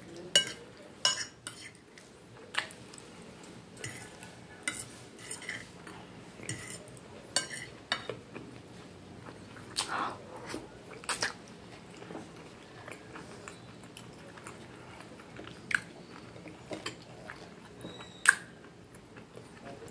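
Fork and knife clinking and scraping on a plate as spaghetti and meatballs are cut and picked up, in scattered sharp clinks, with chewing and eating sounds.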